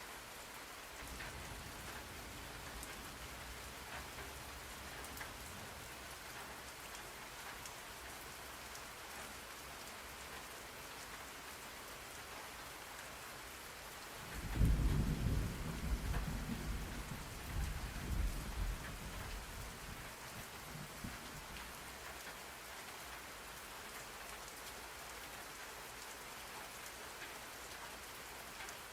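Steady rain falling, with a low roll of thunder about halfway through that swells for several seconds and then fades back into the rain.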